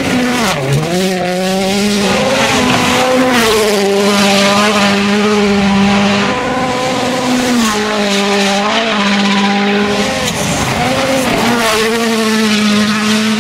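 A 2017 World Rally Car's turbocharged 1.6-litre four-cylinder engine at high revs on a gravel stage. The pitch holds steady for seconds at a time, with a few sudden drops and rises as it shifts gear. A steady hiss of gravel under the tyres runs beneath it.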